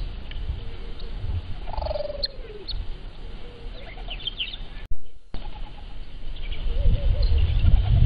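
Wild birds chirping and calling, with one longer falling call about two seconds in, over a steady low rumbling noise. The sound breaks off briefly about five seconds in; after that the low rumble is louder, with soft short calls.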